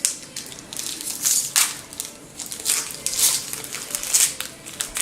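Foil wrapper of a Pokémon trading card booster pack crinkling under the hands in a series of irregular, crisp rustles.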